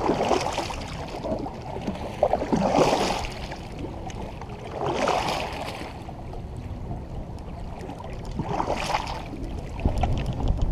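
Kayak paddle strokes: the blade swishes and splashes through the water four times, a few seconds apart.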